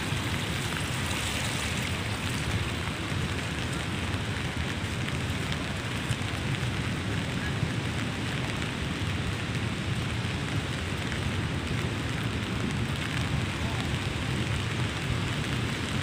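Steady, even hiss of falling rain.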